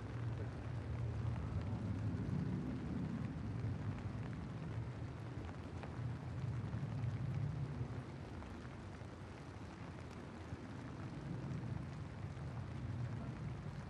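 Steady rain falling, with a low rumble underneath that swells and eases.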